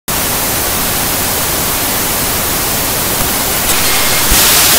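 Television static: a steady, even hiss of white noise from an untuned TV screen, starting suddenly, then growing louder and brighter for the last half second.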